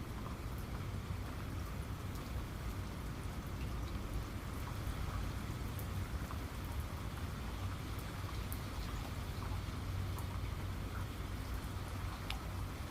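Steady rain falling, an even hiss with scattered individual drops ticking, over a steady low rumble.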